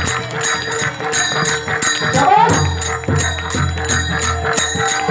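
Devotional bhajan music with small hand cymbals (taal) clashing at a steady quick beat, about four or five strikes a second, over a low steady drum-like bass; a voice glides briefly about two seconds in.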